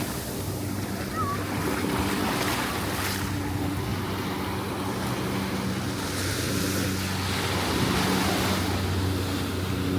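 Ocean surf washing onto the beach, with wind buffeting the microphone and a low, steady drone underneath.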